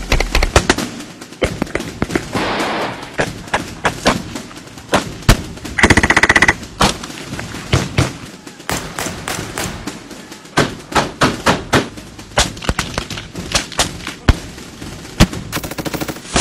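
Military small-arms fire from rifles and a machine gun: a string of sharp single shots and short bursts, with a rapid automatic burst about six seconds in and another near the end.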